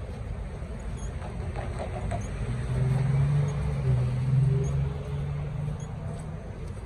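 A vehicle passing over a background of street noise: a low steady hum that swells about two and a half seconds in and fades out near the end.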